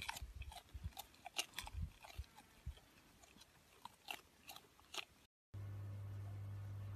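Alpaca chewing close by: scattered, irregular crunches and clicks for about five seconds. After a short break comes a steady low hum.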